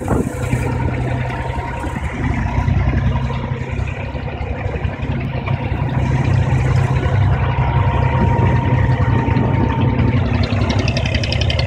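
Engine of a small wooden water-taxi boat (abra) running steadily, heard from on board as the boat crosses the water.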